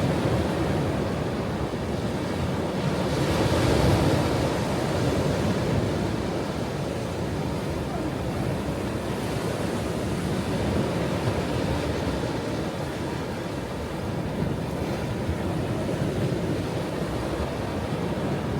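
Ocean waves breaking and washing on a shore in a continuous surge, one swell peaking a few seconds in and gentler ones following.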